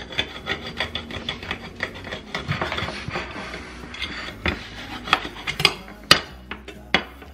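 A chef's knife sawing back and forth between two ceramic plates, cutting through a layer of cherry tomatoes; the blade rasps and scrapes against the plates in quick repeated strokes, with a few sharper clicks in the second half.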